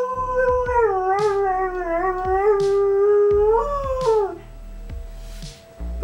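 Border collie howling along with an emergency siren: one long, wavering howl that dips and then falls away about four seconds in, followed by a fainter steady tone.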